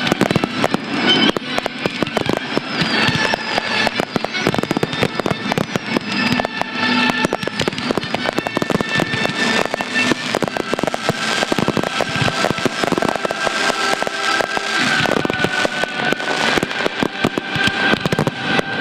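Fireworks display: a continuous run of firework bursts and crackles, set to music with sustained notes.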